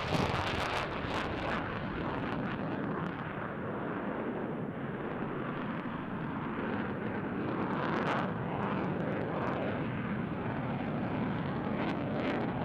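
Boeing F-15QA jet fighter with twin General Electric F110-GE-129 turbofans running hard as it pulls up into a steep climb. A steady, dense jet noise, with sharp crackles near the start and again later on.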